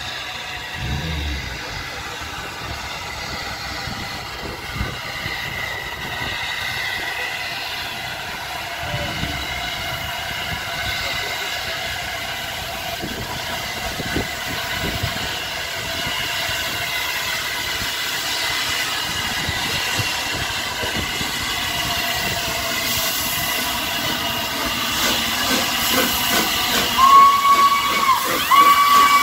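Steam locomotive with a steady hiss of steam that grows louder toward the end, where its whistle sounds two short blasts.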